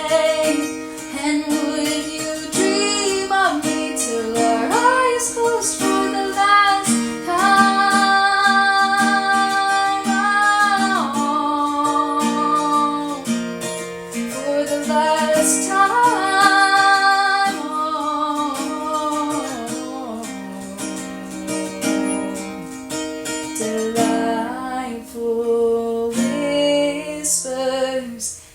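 A woman singing a slow love song over a strummed acoustic string instrument, with long held notes, one of them lasting about three seconds. The recording is made on a phone.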